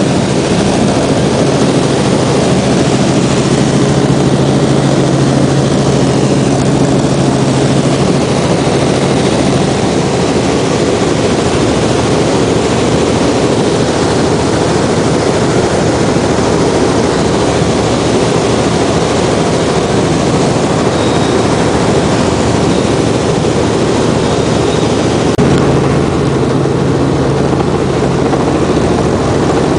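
Robinson R44 Clipper II helicopter in cruise flight, heard from inside the cabin: a loud, steady drone of rotor and six-cylinder Lycoming piston engine noise. A low hum within it drops away for about fifteen seconds in the middle and comes back near the end.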